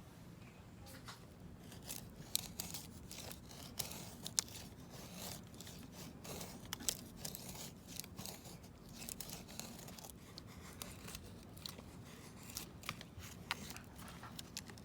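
Wood fire crackling: a dense run of irregular small pops and snaps over a low background hum.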